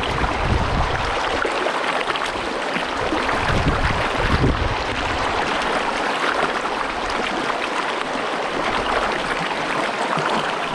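Big Rock Creek's water running over rocks: a steady rushing flow, with a few brief low rumbles.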